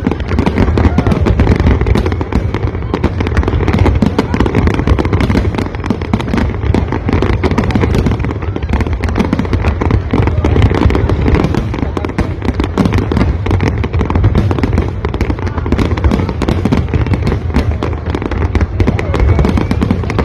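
Fireworks display in full barrage: a continuous, dense stream of bangs and crackles over a heavy low rumble, with no pause.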